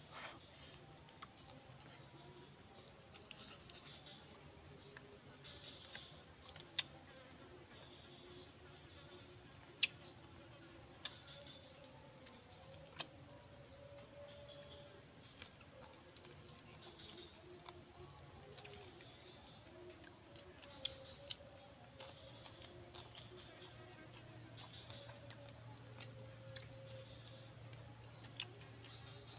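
Steady high-pitched chorus of insects, with a few sharp clicks now and then.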